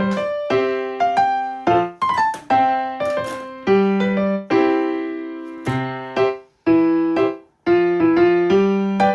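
Background piano music: a run of separate struck notes, each fading after it sounds.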